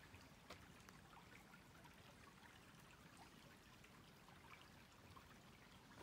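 Near silence: a faint, steady background hiss with a few tiny ticks.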